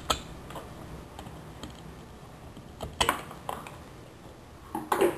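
Scissors cutting a piece of glass under water: a scattering of sharp clicks and snaps as the glass cracks, loudest about three seconds in and again near the end.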